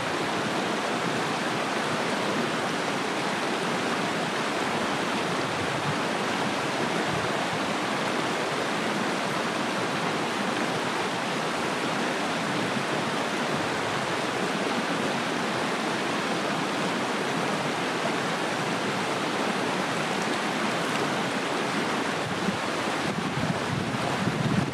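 Small mountain creek rushing steadily over rocks and riffles.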